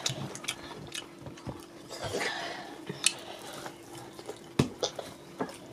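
Scattered light clinks and taps of hands and fingers against ceramic plates and a soup bowl while eating fufu and egusi soup by hand. A faint steady hum runs underneath.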